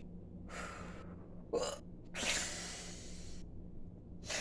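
A woman hiccuping: one sharp hiccup about one and a half seconds in and a smaller one near the end, with long breaths between them.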